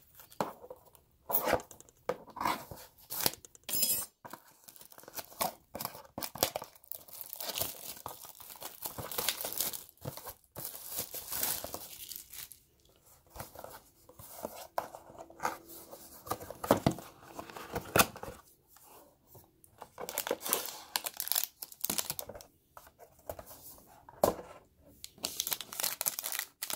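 Plastic shrink-wrap being torn and crinkled off a sealed trading card box, in irregular rips and rustles with a few sharp crackles.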